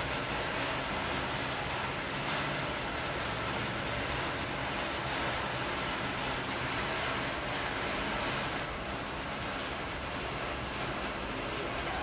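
A steady, even hiss of noise that dips slightly about three-quarters of the way through.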